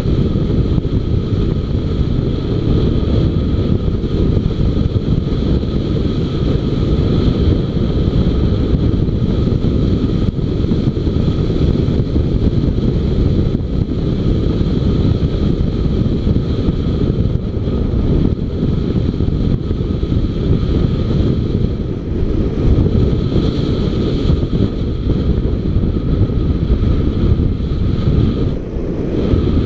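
Wind rumbling over the microphone of a camera on a moving motorcycle, mixed with the bike's engine running steadily and a steady high whine. The noise dips briefly near the end.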